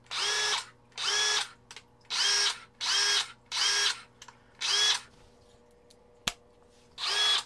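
Craftsman brushless RP cordless drill/driver run with no load in seven short trigger pulls, each about half a second, the motor spinning up quickly on each one. A single sharp click comes shortly after the sixth run. The owner calls the drill smooth, very smooth.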